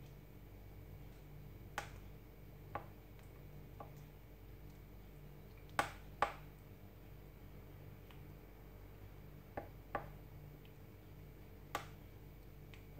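A metal spoon stirring butter and spice paste in a ceramic bowl of thick porridge, clinking lightly against the bowl now and then: about eight short clinks, the loudest a close pair about six seconds in, over a faint low hum.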